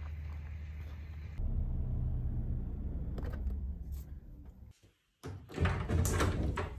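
A low rumble, then a round doorknob being turned and a wooden door unlatched and opened, with a run of sharp clicks and knocks.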